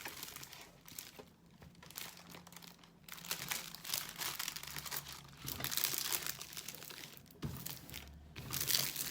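Plastic packaging crinkling and rustling as a diamond painting kit is unwrapped and handled, in irregular bursts.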